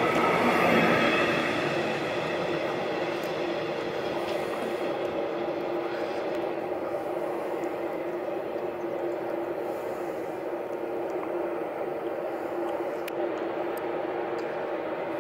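A train running on the Gotthard mountain line: a steady rail rumble with faint steady tones in it, loudest at the start and easing off over the first two seconds, then holding level.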